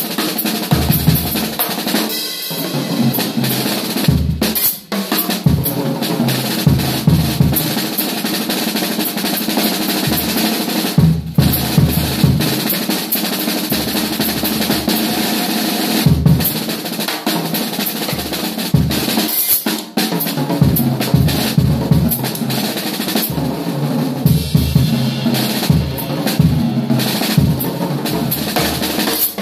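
Acoustic drum kit played solo: busy, fast strokes and rolls on the snare and toms over steady bass drum kicks. The playing breaks off for a moment twice, about five and twenty seconds in.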